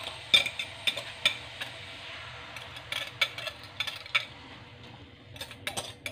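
Spinach frying in olive oil in a pan with a steady low sizzle, as a beaten egg and oat-flake mixture is poured in from a glass bowl, with many light clicks and taps of the bowl and pan. The sizzle thins about five seconds in.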